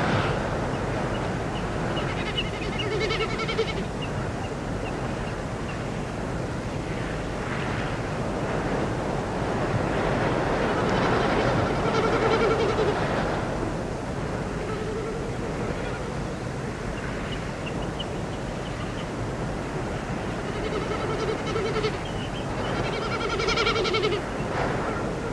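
Spring-morning nature ambience: birds calling in drawn-out, several-note calls every few seconds over a steady rushing background hiss.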